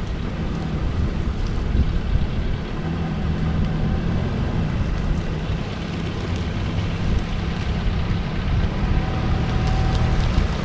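A Jeep's engine running steadily as the vehicle is driven, a low even hum with some wind noise on the microphone.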